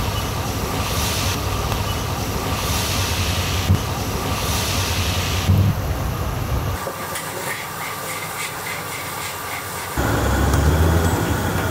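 Deep-frying oil in a large wok sizzling steadily, over a low rumble that drops away for a few seconds past the middle and then returns.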